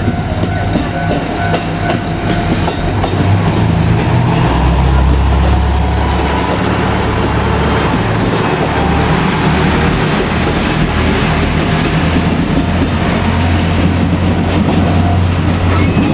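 KiHa 200 diesel railcar running close by, its diesel engine droning steadily with the wheels clicking over rail joints; the engine note drops lower about four seconds in and shifts again near the middle.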